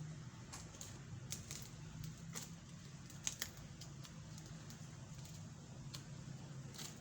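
Small hard items being handled during an unboxing: a scatter of short clicks and taps, two close together about midway, over a steady low hum.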